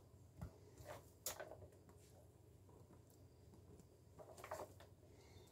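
Faint kitchen handling sounds: a few soft clicks and rustles from a plastic container and sliced onion, fennel and artichoke hearts being scattered by hand onto focaccia dough. The sounds come in short bits around one second in and again near four and a half seconds.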